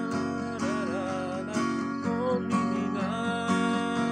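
Takamine steel-string acoustic guitar strummed in steady chords, with a wordless sung melody wavering over it.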